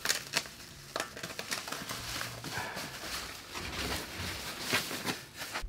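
Irregular knocks, taps and rustles as TV stand parts and packaging are handled.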